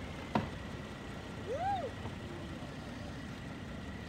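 Steady low rumble of a Boeing 737-800 jet airliner passing high overhead. A sharp click comes about a third of a second in, and a short squeak that rises and falls comes around the middle.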